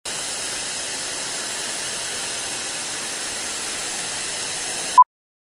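Steady hiss of TV static that cuts off suddenly about five seconds in, followed by one short beep.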